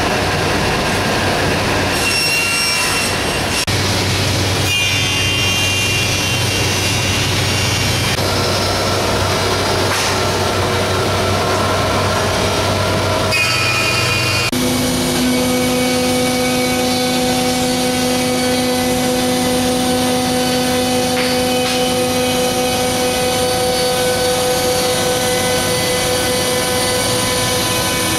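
Woodworking machines cutting Brazilian cherry: first a saw working the stock, then, from about halfway, a Grizzly G1021X thickness planer running steadily as a hollow box-newel section is fed through it.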